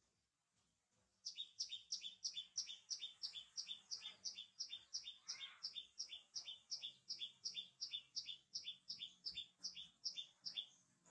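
A small bird chirping in a fast, even series of sharp two-part chirps, about three a second, starting about a second in and stopping just before the end.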